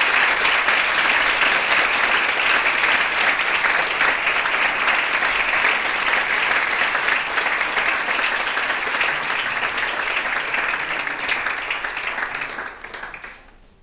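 Audience applauding steadily after a talk, fading out near the end.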